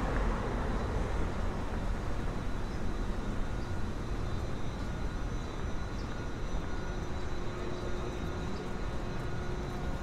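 Steady low rumble with a light hiss: outdoor urban background noise, with no single event standing out.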